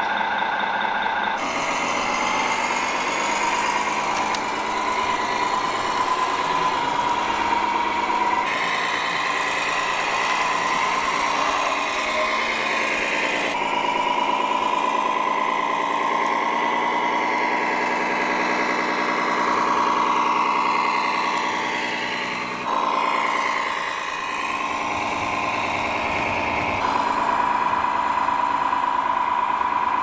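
Radio-controlled model MAN truck driving: a steady whining motor hum with engine-like harmonics, whose pitch rises and falls as it speeds up and slows, and which changes abruptly several times.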